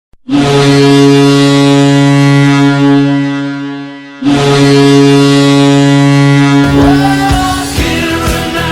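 Ice hockey goal horn sounding two long, low-pitched blasts, the first about four seconds long and fading away, the second starting suddenly and lasting about three seconds. The goal song's music comes in under the end of the second blast.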